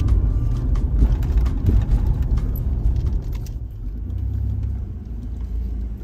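Car cabin noise as the car rolls slowly, a low rumble with scattered crackling for the first three seconds or so, settling to a steadier, quieter low hum about three and a half seconds in.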